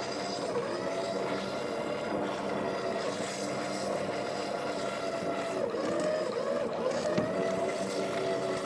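An engine running steadily at high speed, its pitch dipping briefly twice, about six and seven seconds in.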